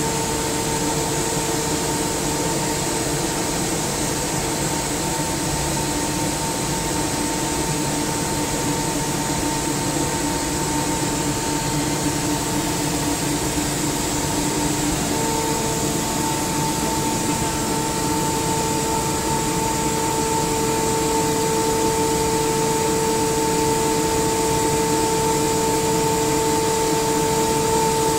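SCR Comp SCR50M rotary screw air compressor running steadily: an even rushing noise with a steady whine that grows stronger about halfway through.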